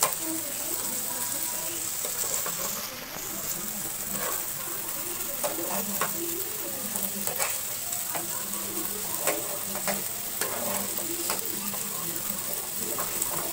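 Marinated chicken pieces sizzling in hot oil in a flat frying pan, with a spatula now and then scraping and tapping the pan as they are turned. The pieces are browned and nearly cooked.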